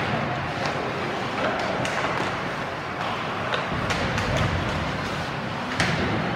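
Ice hockey play in a rink: a steady wash of skating and spectator noise, broken by a handful of sharp clacks of sticks and puck, the loudest one near the end.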